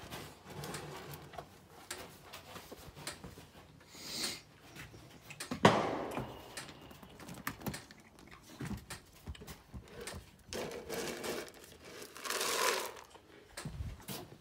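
Cow eating pelleted feed from a bucket: irregular rustling and crunching as its muzzle works through the pellets. A sharp knock comes about five and a half seconds in, and a louder burst of rustling near the end.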